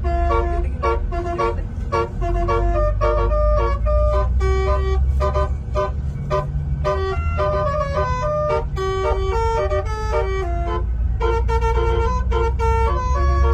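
Telolet Basuri multi-tone bus horn playing a quick tune of short notes that step up and down in pitch, over a steady low rumble.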